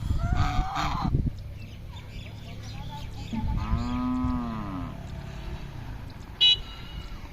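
Animal calls: a short cluster of higher calls at the start, then one long call of about a second and a half that rises and falls in pitch, and a brief high chirp near the end.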